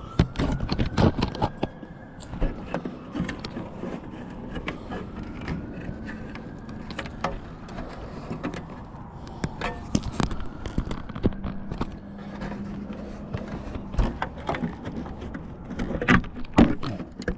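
Irregular knocks, taps and scrapes from hands and tools working at a clogged dryer vent, with sharp clicks scattered throughout.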